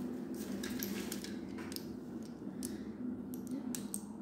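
Light clicks and taps of a blocky plastic toy figure being handled and its parts moved, scattered irregularly over a low steady hum.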